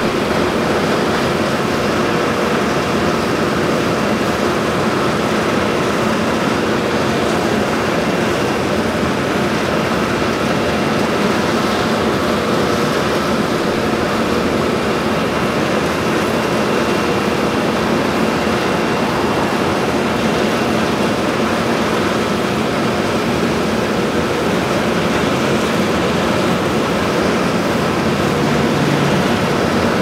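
Industrial exhaust fan running steadily: an even rushing noise with a few faint steady tones humming in it.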